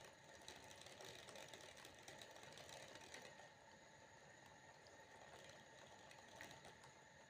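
Water droplets dripping faintly: a quiet, irregular patter of small ticks over a soft hiss.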